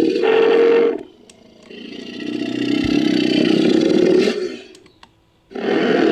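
Designed Shringasaurus creature calls: one long call cuts off about a second in, a second swells up and fades out over about three seconds, and a third starts near the end.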